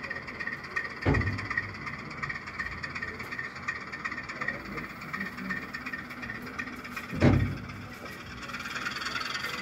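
Model train running on an exhibition layout, with a steady faint high tone and two dull thumps about six seconds apart.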